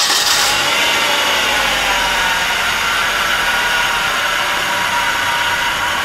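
Nissan 2.4-liter four-cylinder engine running steadily just after starting, fed on pressurized fuel-injector cleaner instead of gasoline; the engine has a misfire on cylinder 4.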